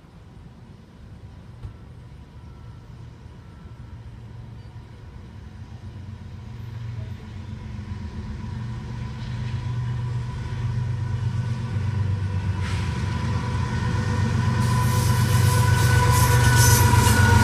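Diesel locomotives of a CSX freight train approaching on the main line: a deep engine rumble grows steadily louder over the seconds. Near the end the lead unit passes close by, adding the rattle of wheels on rails.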